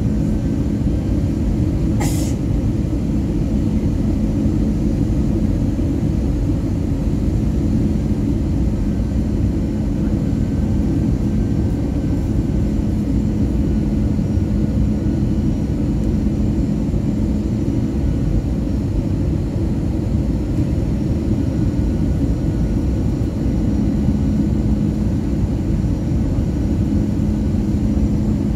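Cabin noise of an Airbus A320 on final approach, heard from a window seat over the wing: a steady jet-engine and airflow drone with a low steady hum. There is a single sharp click about two seconds in.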